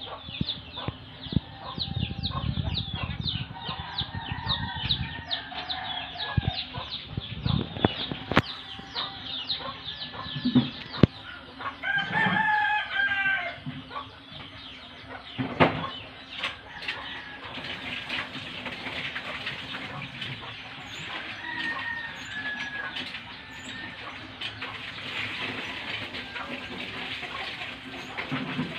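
Chickens clucking, with a rooster crowing once about twelve seconds in, over a run of quick, high, falling chirps from a small bird during the first several seconds. A few sharp knocks break in.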